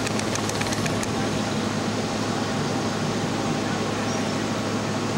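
Steady vehicle noise from a slow-moving car: a constant low engine hum under road noise, with a few light clicks in the first second.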